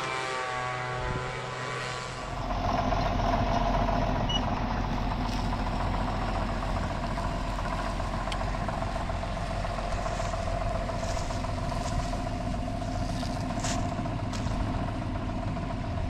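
Farm tractor engine running steadily. In the first two seconds or so a different steady machine hum is heard before the tractor engine takes over.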